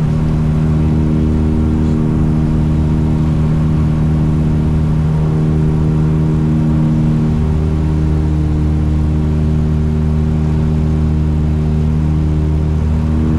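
The Tecnam P2006T's two Rotax 912 four-cylinder engines and propellers running steadily at approach power, heard inside the cockpit as a loud, even drone with several held tones.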